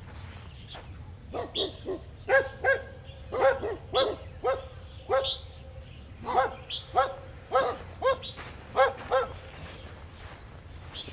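Feral puppy barking: a run of about fifteen short, high-pitched barks, each dropping in pitch, starting about a second in and stopping near the end.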